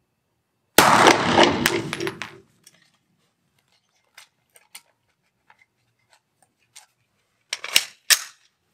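A Glock 17 Gen 4 9 mm pistol fired in a quick string of shots, echoing in an indoor range, followed by light clicks of the pistol being handled and two sharp metallic clacks near the end.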